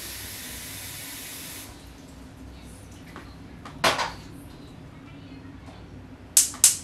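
Kitchen tap running into a pot for about a second and a half, then shut off. Partway through, an enamel pot is set down on the gas stove's cast-iron grate with a single knock. Near the end, the gas range's spark igniter clicks several times as the burner is lit.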